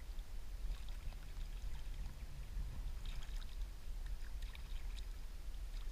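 Small splashes and trickling of shallow water stirred by a hand holding a caught fish under the surface for release, over a steady low rumble.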